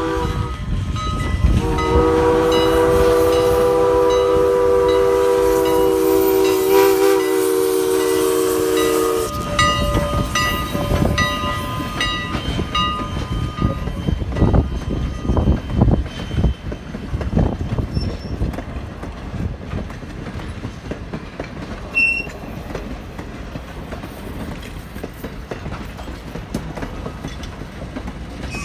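Ex-CN 89 steam locomotive sounding its whistle: a brief toot at the start, then one long blast of several tones together lasting about seven seconds. The whistle is followed by the clatter of the passing train's wheels and cars, slowly fading.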